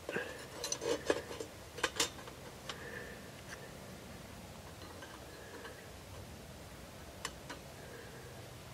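Light metallic clinks and scrapes as pieces of rusty scrap sheet metal are handled and fitted into a folding steel camp stove. Most of them fall in the first three seconds, with two more light clicks near the end.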